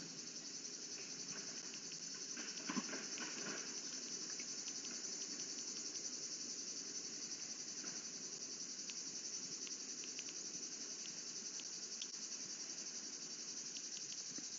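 Insects chirring steadily in a faint, high, even drone, with soft rustles and light ticks now and then.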